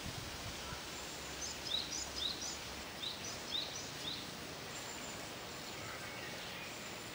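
Small birds chirping: a run of about eight short, high chirps from about a second and a half in to about four seconds in, over steady outdoor background noise, then a few faint thin high calls.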